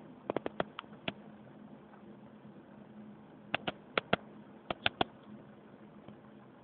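Sharp, irregular clicks from an antique Froment electromagnetic motor as it is handled at the flywheel, in two clusters: a quick run near the start and another about halfway through. A faint low steady hum lies underneath.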